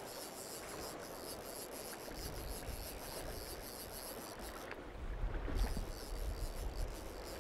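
Fast-flowing river water rushing in a steady wash, with splashing as someone wades through the shallows and a low rumble that comes in about two seconds in and swells near the middle.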